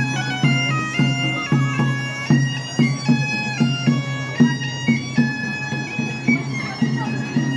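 A bagpipe playing a tune: a melody moving note by note over a steady low drone, with a small hand drum tapping out a regular beat.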